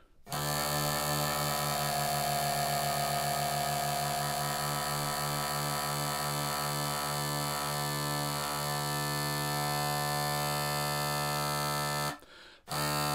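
Two drones of a Flemish bagpipe, blown directly by mouth, sounding a steady low drone together on roughly D. They are slightly out of tune, giving a wah-wah beating that slows as one drone is tuned and stops about two-thirds of the way through, leaving the drones in tune. The drones break off briefly near the end and then sound again.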